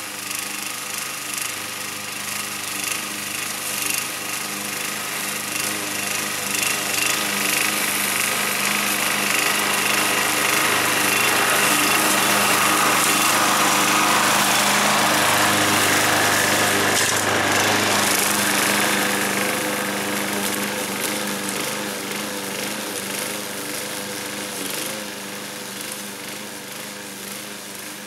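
Alpina BL 510 petrol lawnmower running steadily while cutting tall, dry grass. It grows louder as it comes close, is loudest around the middle, then fades as it moves away.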